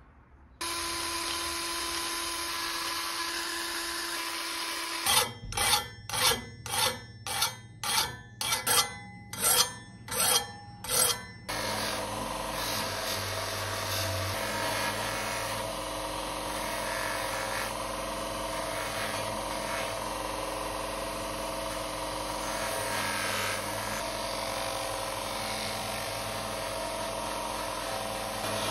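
Motor-driven abrasive wheel spinning while a small brass part is held against it: a steady grinding rasp over the motor's hum. Early on it breaks into about ten sharp, evenly spaced surges, roughly one every 0.6 s, before settling back into a steady grind.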